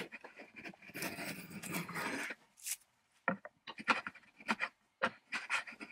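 A hand tool scraping along a wooden strip held in a vise: one long stroke lasting over a second, then a series of short scrapes and clicks.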